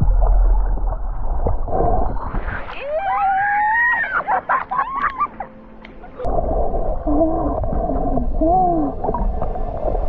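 Humpback whale song: long moaning calls that slide up in pitch and fall away, followed by a run of shorter lower moans and whoops, over the low rush of water.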